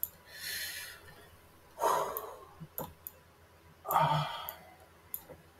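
A man's breathing: a breath in the first second, then two heavy sighs about two seconds apart. A few short, sharp computer mouse clicks come in between.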